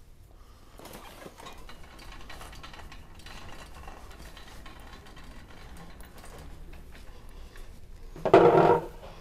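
Shopping cart rolling across a concrete store floor, its basket and contents rattling and clicking lightly. Near the end comes a brief loud sound, about half a second long.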